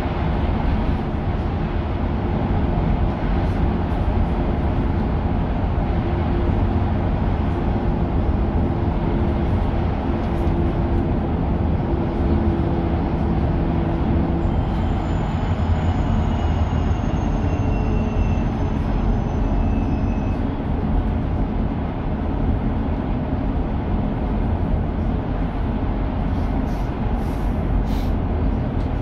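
Inside a Mercedes-Benz eCitaro battery-electric bus on the move: a steady road and tyre rumble, with a thin high electric whine that falls slowly in pitch about halfway through. A few light clicks or rattles come near the end.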